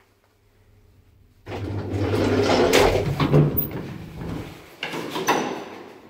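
Passenger lift's automatic car doors sliding open with a loud rattle that starts suddenly about a second and a half in, over a low hum, ending with a sharp clack near the end as they stop.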